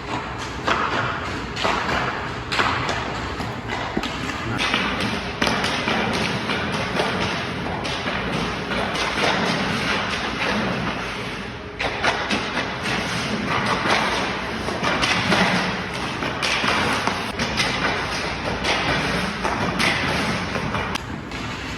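Ice hockey skate blades carving and scraping on rink ice in repeated swishing strokes during edge-work drills, with knocks and thuds among them.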